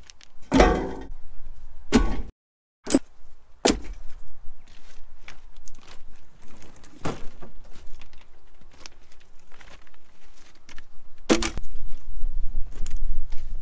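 Irregular wooden knocks and thuds of firewood being handled, with footsteps and a low rumble underneath; no saw is running.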